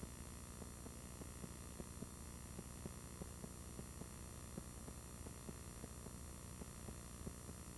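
Steady electrical hum and hiss with faint, irregular crackling ticks several times a second. No voices or other sounds can be heard.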